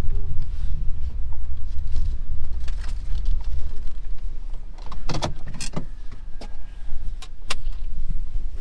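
Car's steady low engine and road rumble, with a few sharp clicks or rattles about five and seven and a half seconds in.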